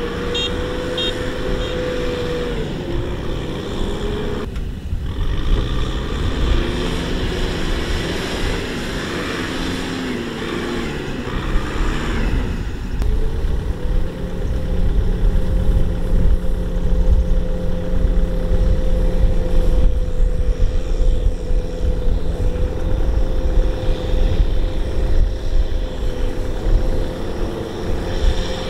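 Kubota M6040 tractor's diesel engine running steadily as it tows a trailer loaded with rice sacks. The engine note breaks briefly about five seconds in, and the engine is somewhat louder over the second half.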